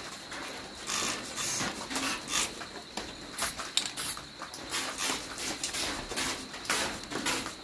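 Aerosol spray-paint can hissing in a run of short, irregular bursts, about one or two a second, misting spots of paint onto a panel to build up fake patina.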